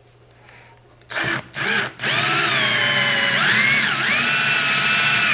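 Cordless drill driver turning a mini mill's Z-axis screw through a coupler, raising the milling head. Two short trigger blips come about a second in, then the drill runs at a steady whine, with its pitch dipping briefly and recovering about midway.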